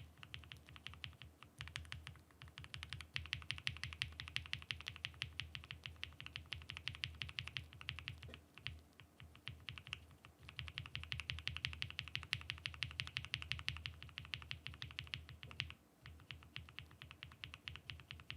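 Mechanical keyboard being typed on fast and continuously, many keystrokes a second, with a few brief pauses.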